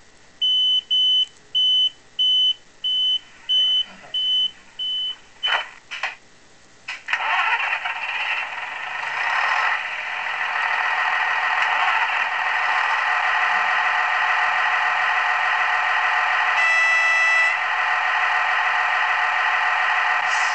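Digital sound decoder of a Fleischmann BR 648 model diesel railcar, heard through its small speaker with no bass: a run of about eight short, even beeps, then two clicks, then the diesel engine starts about seven seconds in and runs steadily, growing louder. A short horn blast sounds about seventeen seconds in.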